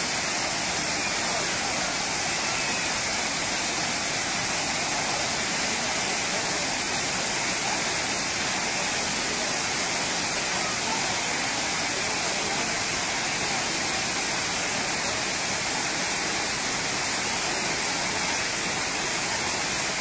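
Waterfall falling onto rocks and into a pool, a steady, unbroken rush of water heard close up.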